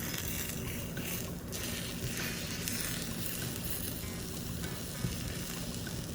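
Whipped egg whites, mushrooms, cherry tomatoes and spinach sizzling steadily in olive oil in a hot frying pan.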